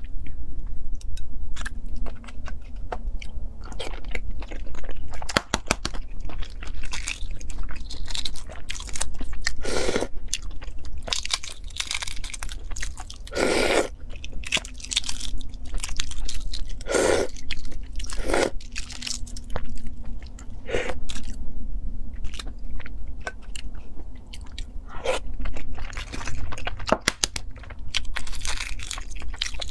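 Eggshells of cooked eggs crackling and crunching as they are cracked and peeled by hand close to the microphone, a dense run of small crackles with a few louder crunches, over a low steady hum.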